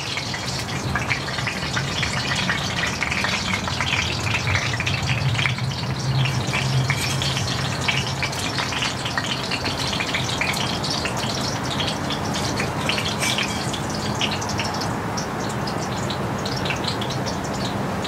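Hot oil sizzling steadily as sliced plantains fry, with many small pops and crackles.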